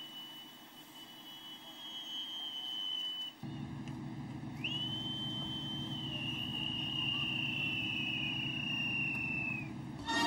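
Boatswain's pipes (bosun's calls) piped by sailors: a long high note that ends about three seconds in, then after a short gap a second long note that swoops up at its start and drops slightly in pitch before cutting off near the end. A low steady hum sits underneath from about a third of the way in.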